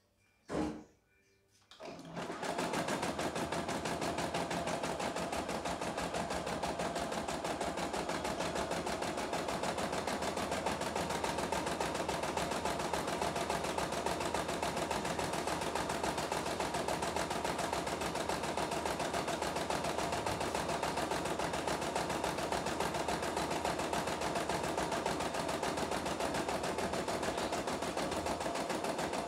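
CNY E960 computerized embroidery machine starting up about two seconds in and then stitching steadily, a fast, even needle clatter. A single knock comes shortly before it starts.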